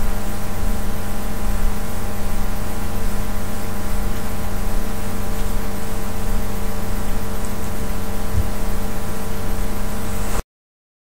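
A steady mechanical whir with a constant hum, running evenly without change in pitch, then cutting off suddenly about ten seconds in.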